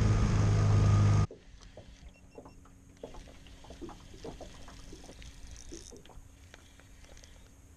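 Small boat's motor running under way, loud and steady, cutting off suddenly about a second in. Then quiet light clicks and taps as a spinning rod and reel are handled, over a faint steady hum.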